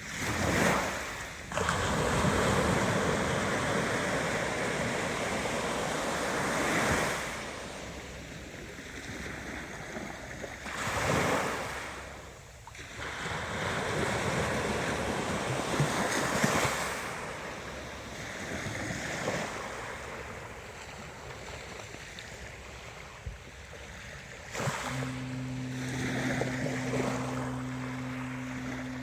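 Ocean waves breaking and washing in, in repeated rising and falling surges a few seconds apart. A steady low hum joins near the end.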